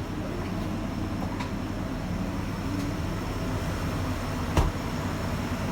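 Steady hum of walk-in refrigerator machinery, its evaporator fans running, with one sharp knock a little after four and a half seconds in.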